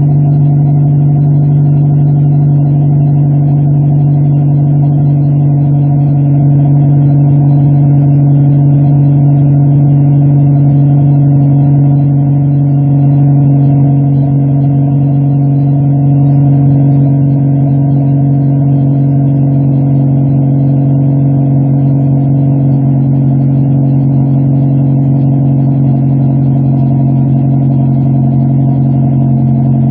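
2006 Honda Civic Si's 2.0-litre K20 four-cylinder idling steadily through a DNA Motoring full race catback exhaust, heard close to the tailpipe. Its pitch eases slightly lower about halfway through.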